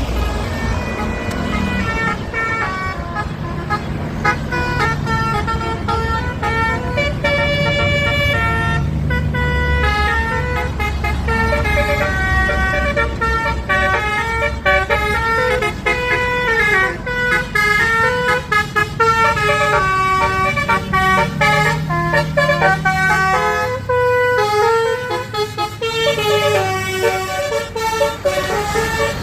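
Bus basuri "telolet" musical horn playing a long, continuous tune of quick stepped notes over the low rumble of the bus's engine.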